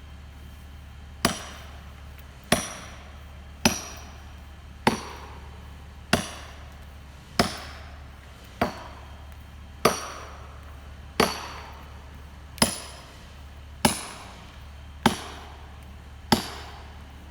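Hand blows struck in a steady rhythm, about one every 1.25 seconds, thirteen in all, each a sharp crack with a short ringing tail. This fits driving a felling wedge with an axe or sledge. A low steady hum runs underneath.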